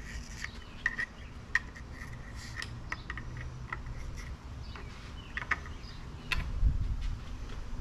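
Light scattered clicks and taps of hands working the toothed timing belt around the outboard's cam pulley, with a heavier bump about six seconds in. Faint chirping, insects or birds, sounds outdoors.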